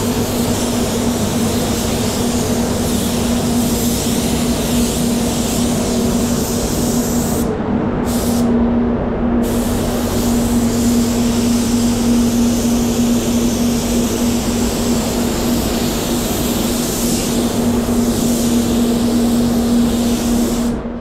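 Satajet 100B spray gun spraying high-build primer: a steady hiss of compressed air from the gun over a constant low hum. The hiss breaks off twice briefly about a third of the way in.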